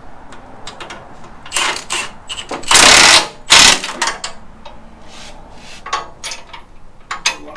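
Cordless impact driver run in two short bursts about three seconds in, driving bolts on a steel cross member, with light clicks and knocks of tools on metal around them.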